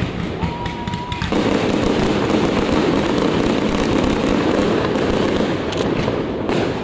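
Fireworks display: a dense, unbroken barrage of bangs and crackling, with a short steady whistle about half a second in.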